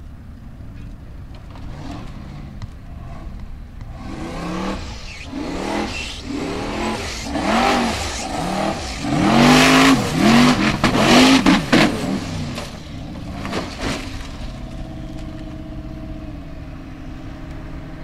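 Formula Offroad buggy's engine revving hard in repeated surges as it claws up a steep loose dirt climb, the pitch sweeping up and down several times and loudest about ten seconds in. Near the end the revving stops and a steady engine idle remains.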